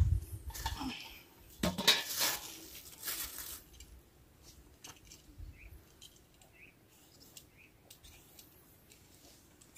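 A steel bowl and its lid clatter against each other and a plastic basin as they are set down, in a few loud ringing knocks that are loudest about two seconds in. After that there are only faint small clicks.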